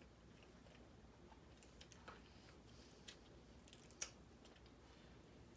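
A few faint, sharp cracks and clicks of snow crab leg shells being broken open by hand, the loudest about four seconds in.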